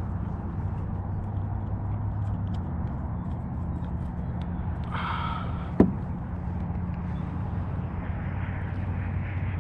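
Steady low droning hum, with a brief faint call about five seconds in and a single sharp click just before six seconds.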